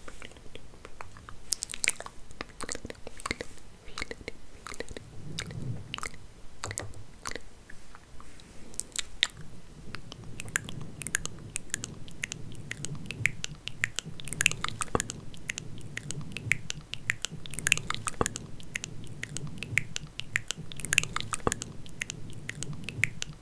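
Hair being combed and handled close to the microphone: a dense, irregular run of crackles and rustles, with a low rumble of handling joining about halfway through.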